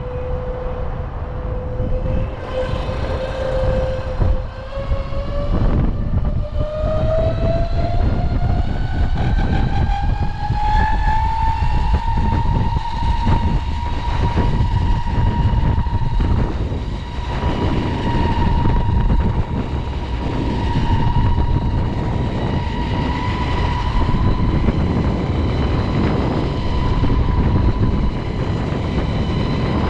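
Electric skateboard motor whining under full throttle. Its pitch rises steadily from about four seconds in to about twelve seconds in as the board speeds up, then holds at top speed, over heavy wind rushing on the microphone.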